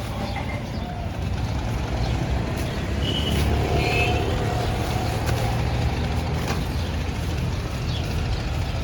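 A steady, low engine rumble, like a vehicle's engine running.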